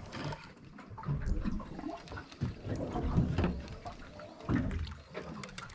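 Water lapping and gurgling against the hull of a small drifting boat, uneven in level, with scattered small knocks and clicks.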